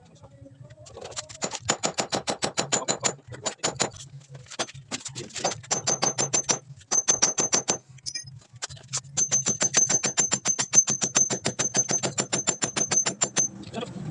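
Power hammer drill boring into the wall in several bursts: a fast, even rattle of blows over a steady high motor whine, with short stops between bursts and the longest burst near the end.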